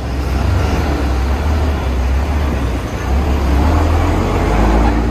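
Engine of a large bus running close by: a loud, steady low rumble, with street traffic noise around it.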